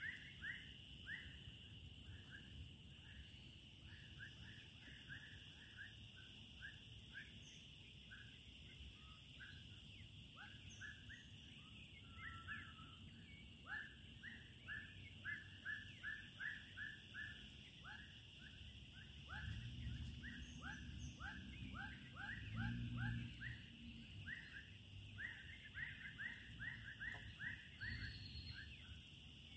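Dusk chorus of calling animals by a stream: two steady high-pitched drones typical of insects, over runs of short rising chirps repeated about three times a second. A low rumble rises briefly around the middle.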